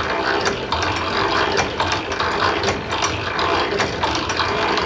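Hand-powered Silver post drill worked by its lever arm: the cast-iron gears and ratchet clicking and clattering, several sharp clicks a second at an uneven pace, as the bit is driven into a steel block.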